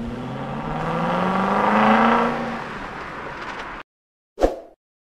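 Car engine revving, its pitch climbing for about two seconds, then easing back before cutting off suddenly, followed by a single short thump.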